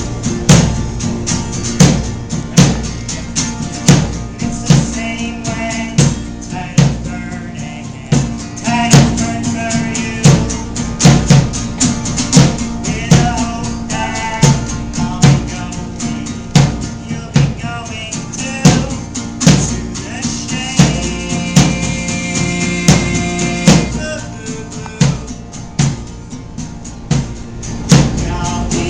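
Live band playing an instrumental stretch of a song, a drum kit with bass drum keeping a steady beat under pitched instruments.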